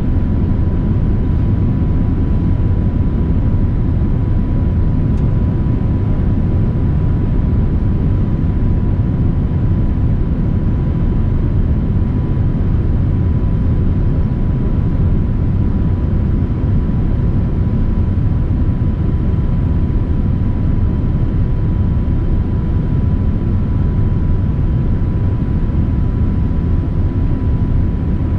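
Steady cabin noise inside a Boeing 787-9 airliner descending toward landing: a loud, even low rumble of airflow and engines with a thin, steady whine running through it.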